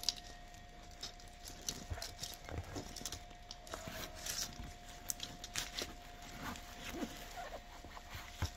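Hands rustling and crackling through fir and holly foliage, with irregular soft taps and knocks, as decorations are pushed into a door garland. A faint steady tone runs underneath.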